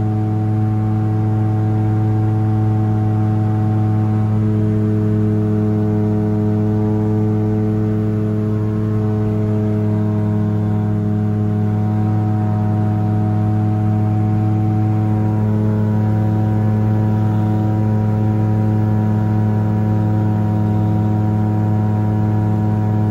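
Titan Tornado light aircraft's engine and propeller droning steadily in cruise flight, heard from inside the cockpit: a loud low hum with a stack of higher overtones that holds the same pitch throughout.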